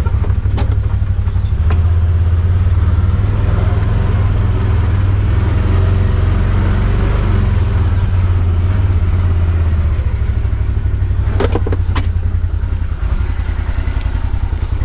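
Vehicle engine running steadily as it backs up slowly, a low drone, with a couple of sharp knocks near the end.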